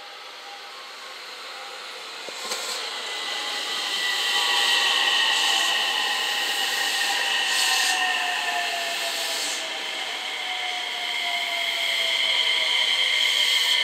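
JR West 227 series electric multiple unit braking into the platform: the motors' electronic whine falls slowly in pitch as the train slows toward a stop, over the rumble of wheels on rail. It grows louder about four seconds in as the cars draw level, with a few short bursts of hiss.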